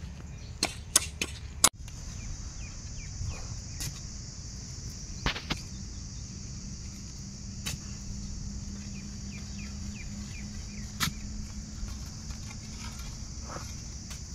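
A steady high insect drone, which comes in about two seconds in, over a low rumble, with a few sharp knocks scattered through from iron bars being jabbed into the soil to make holes for tomato stakes.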